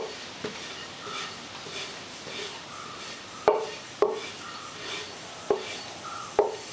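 Metal rolling pin rolling out stuffed dough on a floured wooden board: a soft, repeated rubbing with about six sharp knocks where the pin strikes the board.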